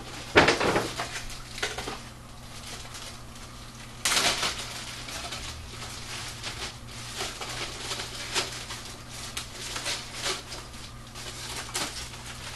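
Plastic bag crinkling and rustling as a foam model-jet part is handled and pulled out of it, with sharper, louder crackles about half a second in and again about four seconds in.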